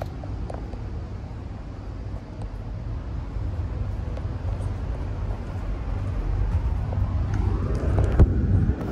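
Steady low rumble of a VIA Rail passenger train running, heard from on board, with a few light clicks and a wavering tone that swells near the end.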